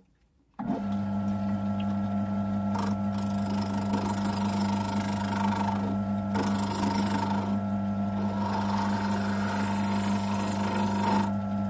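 Wood lathe switched on about half a second in, its motor running with a steady hum. A turning tool cuts the end of a small wooden workpiece spinning in the chuck, adding a hiss that comes and goes.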